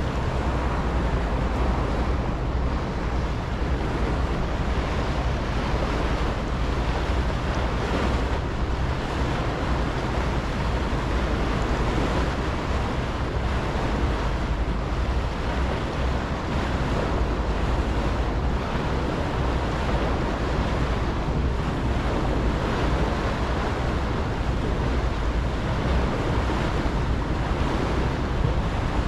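A moving ferry's steady low engine drone under water rushing past the hull. Wind buffets the microphone throughout.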